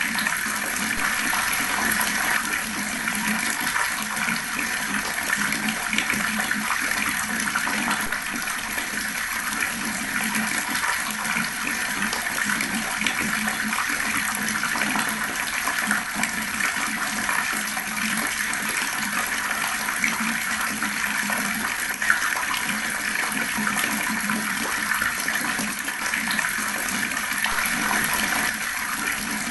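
Fast-flowing water running in a steady, unbroken rush.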